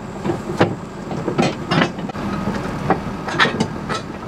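Irregular metallic clanks and rattles from a fifth-wheel hitch in a pickup bed as its height is being raised, with the heavy hitch lifted and fitted back onto its mounts, over a steady low hum.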